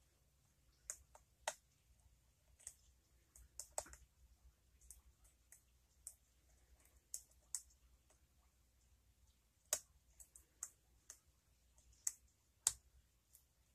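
Faint, irregular metallic clicks, about one a second, from lock picks and a tension wrench working the pin stack of a challenge lock. Two louder clicks come near the end.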